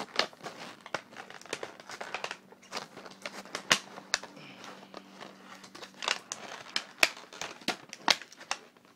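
Tape being peeled by hand off a clear plastic blister package, the plastic crinkling and crackling in irregular sharp snaps.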